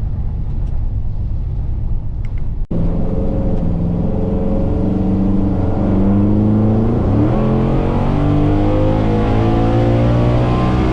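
Ford Gen 3 Coyote 5.0 L V8 in a 1955 F100 pulling under part throttle through a 10R80 ten-speed automatic. A low rumble swells into a strong engine note about three seconds in, and the pitch keeps stepping as the transmission shifts.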